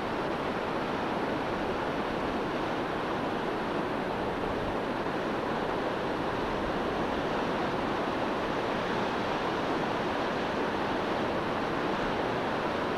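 Steady rushing noise of the flooded Beas River's fast, swollen water, even and unbroken throughout.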